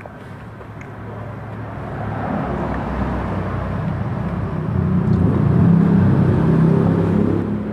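A motor vehicle's engine rumbling close by, growing louder over several seconds, loudest about six seconds in, then falling away near the end, as it passes.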